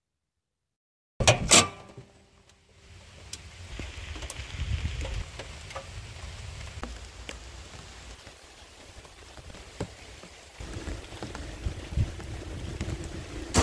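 Silence at first, then a couple of loud sharp knocks about a second in, followed by steady rain with scattered drips and taps. A low steady hum comes in about three-quarters of the way through.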